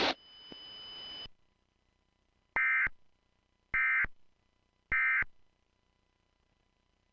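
Three short bursts of Emergency Alert System digital data tones, about a second apart: the End of Message signal that closes an EAS alert. Before them a faint radio hiss trails off and cuts out about a second in.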